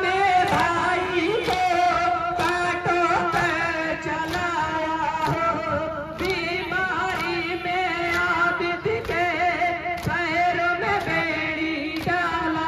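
A sung Muharram lament (noha) chanted by male voices, with sharp slaps of chest-beating (matam) from the crowd striking in time every half second to a second.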